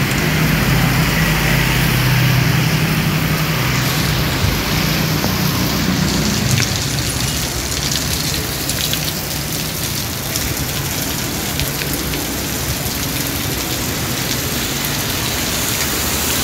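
Heavy rain falling on a road, a steady hiss with fine drop ticks. For about the first six seconds a low vehicle engine hum sits under the rain, then fades.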